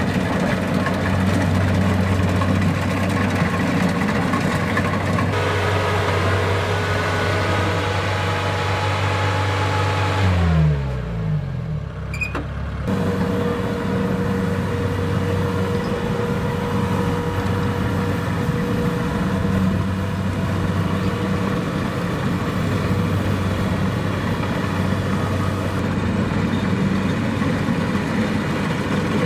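Kubota DC-70 Plus combine harvester's diesel engine running steadily. About ten seconds in its pitch falls away for a couple of seconds, then it runs steadily again with a thin whine above it.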